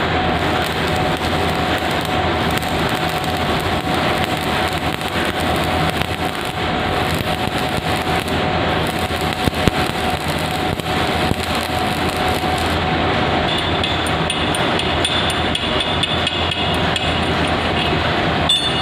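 Stick (manual arc) welding on a steel CTC tea-processing roller: the electrode arc crackles and sizzles steadily over a constant hum. About two-thirds of the way through, the high sizzle thins and a faint high whine comes in.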